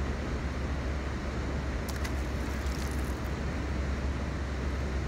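Steady low outdoor rumble, with a few faint clicks about two to three seconds in.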